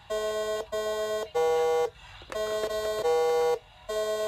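Simon electronic memory game sounding its buzzy tones as the coloured pads light: about six beeps of roughly half a second each, at two or three different pitches, with short pauses between some of them.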